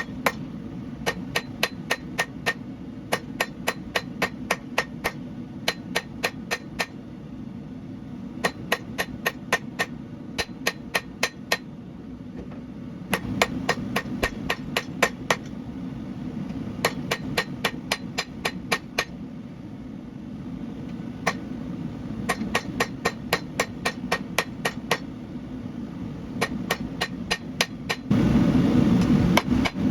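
Hand hammer striking hot Damascus steel on an anvil, in quick runs of about four blows a second with short pauses, over a steady low rushing noise. Near the end the low rushing noise swells loudly for a second or two.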